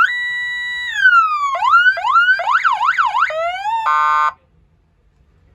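Electronic car police siren being run through its tones: a rising wail that holds a steady pitch and falls away, quick rising yelps, a fast up-and-down warble, then a short flat buzzy horn blast that cuts off about four seconds in.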